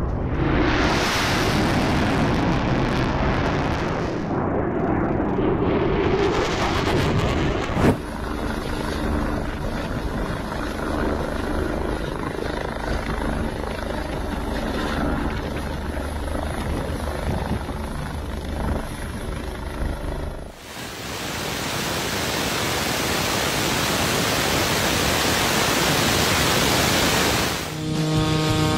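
A fighter jet roaring past low overhead, swelling twice in the first eight seconds. Then a helicopter's turbine and rotor running steadily as it hovers, giving way about twenty seconds in to a loud even rushing hiss; music comes in near the end.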